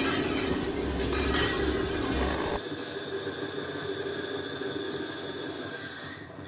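Experimental noise performance: a dense, rattling noise drone with steady hum-like tones. About two and a half seconds in it drops in level and loses its low rumble, then thins out near the end.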